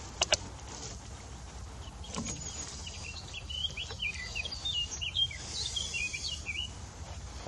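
A small songbird singing a rapid run of high chirps for a few seconds. Near the start come two sharp clicks in quick succession.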